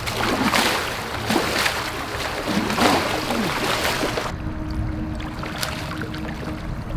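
Water splashing hard as a large hooked nurse shark thrashes in shallow water at the shoreline. About four seconds in, the splashing gives way to softer sloshing with a steady low hum underneath.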